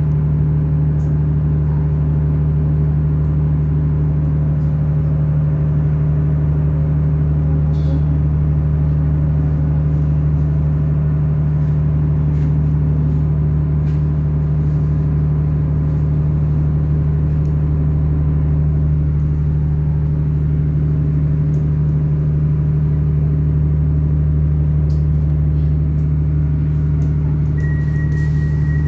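Steady low drone of an Irish Rail 29000 class diesel multiple unit's underfloor diesel engines, heard from inside the carriage as the train creeps along the platform and stops. A high beeping starts near the end.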